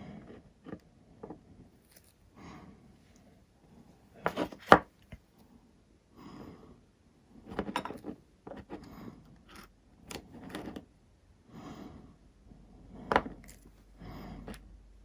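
Handling noises of small hard objects being worked with: scattered clicks and knocks, the sharpest about four and a half seconds in and again near the end, between soft rustling sounds.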